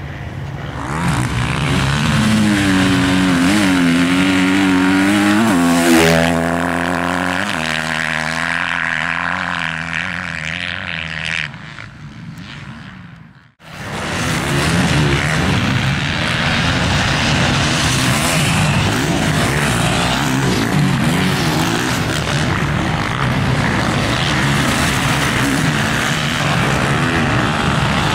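Motocross bike engine running close by, revving up and down, then fading out about eleven seconds in. After a short break, a motocross bike runs on the track with a steady, unbroken engine noise.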